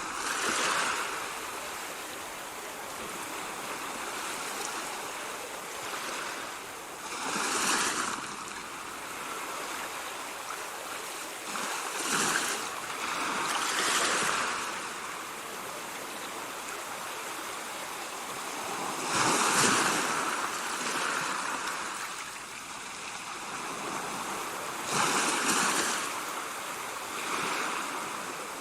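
Ocean waves breaking and washing in: a steady hiss of surf with a louder surge every few seconds.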